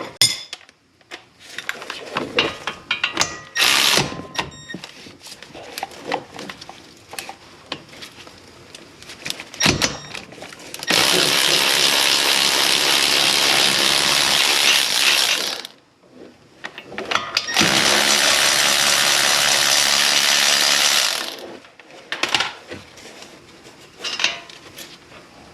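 Ratchet clicks and tool clatter, then a power tool runs twice in long steady bursts of about four seconds each, spinning out the loosened hub assembly mounting bolts.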